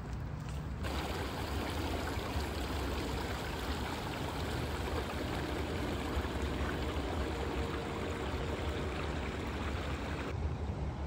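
Shallow creek flowing over rocks: a steady rush of water, with a low rumble underneath.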